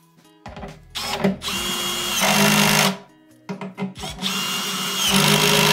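Cordless drill-driver driving in the two bolts that hold a handle: two runs of the motor, about two seconds each, each getting louder in its second half as the bolt is driven home.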